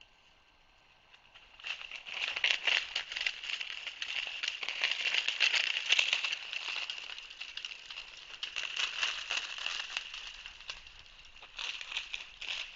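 Bald eagle chattering: a long, rapid run of high-pitched chirping notes starting about two seconds in and easing off, then a shorter second burst near the end.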